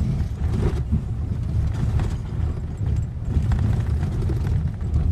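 Pickup truck driving over a rough dirt trail: a low, uneven rumble with creaks and rattles from the body and suspension, heard from inside the cab.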